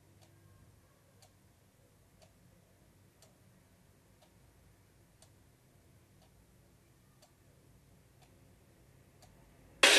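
Faint, regular ticking, about one tick a second, over a faint low hum. Near the end, loud music and voices cut in suddenly.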